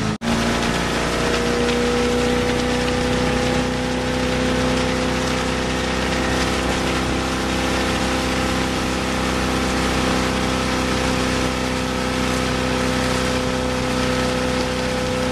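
Ski boat's inboard engine running steadily at towing speed, with a constant hiss of water spray kicked up by a barefoot skier on the boom.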